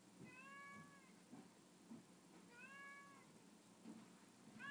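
Domestic cat meowing faintly, two drawn-out meows about two seconds apart, with a third starting at the very end.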